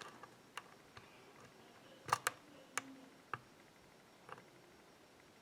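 Faint, scattered small metallic clicks of a pick and tension tool working the pins of a pin-tumbler challenge lock, whose serrated and spool pins have just dropped out of their set. The sharpest clicks come about two, three and three and a half seconds in.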